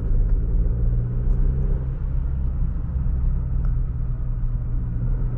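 A Chevy Colorado's 2.7-litre turbocharged four-cylinder engine, heard from inside the cab, running steadily under light throttle as the truck speeds up gently at low speed, with a low road rumble underneath.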